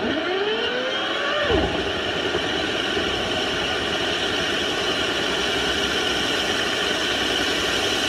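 Motorised dryer-vent cleaning gear running steadily as a rotary brush on a flexible rod scrubs lint out of a clogged dryer vent. A motor whine rises in pitch over the first second and drops off sharply about a second and a half in.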